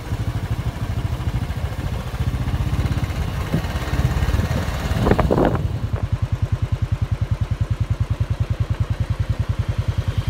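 Motorbike engine running steadily under a rider, a fast low pulsing with rushing air on the microphone. Just after five seconds there is a brief louder clatter; after that the engine pulses settle into an even beat.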